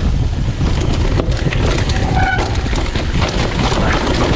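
Mountain bike descending a rough downhill trail at speed: heavy wind rumble on the microphone, with the bike's tyres, chain and frame rattling in quick knocks over the dirt. A short brake squeal about two seconds in.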